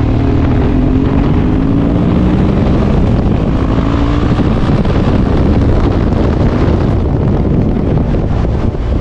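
BMW R 1200 GS boxer-twin motorcycle riding at speed, with wind rushing over the microphone. The engine note climbs in pitch over the first few seconds as the bike accelerates.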